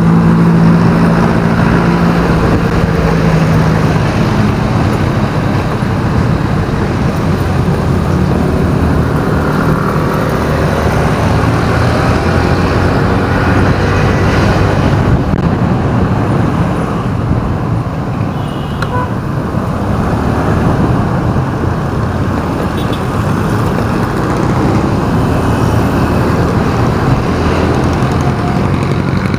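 A vehicle's engine idling steadily for the first few seconds, then the vehicle moving through city traffic with continuous road and traffic noise, settling back to idle near the end.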